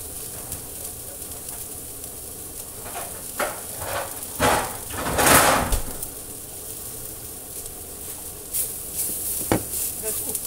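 Chopped greens frying steadily in a metal pan, with a few kitchen knocks and a louder rush of noise about five seconds in.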